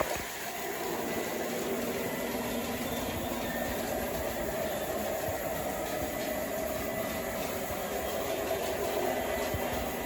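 O gauge model train running steadily along its track, an even rumble of wheels on rails and motor hum.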